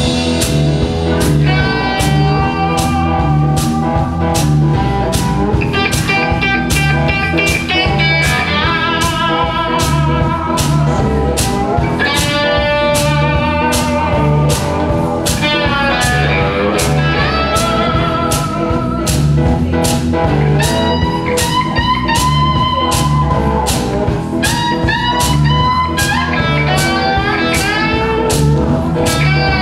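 Live blues band playing: amplified box-bodied guitars with wavering, sliding notes over a steady drum-kit beat.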